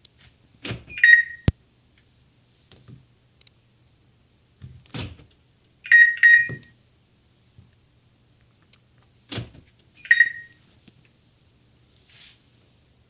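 Car-alarm siren giving short beeps of a single high tone, the arm/disarm confirmation chirps it sounds on short power pulses: one beep about a second in, two in quick succession about six seconds in, and one more about ten seconds in. A short knock comes just before each, and a sharp click follows the first beep.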